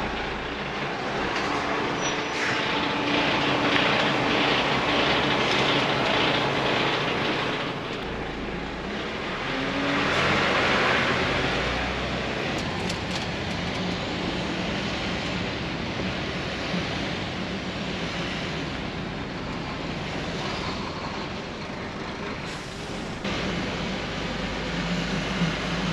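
DAF truck's diesel engine running as the truck drives slowly, heard from inside the cab as a steady hum under dense road and engine noise, with a louder hissing rush about ten seconds in.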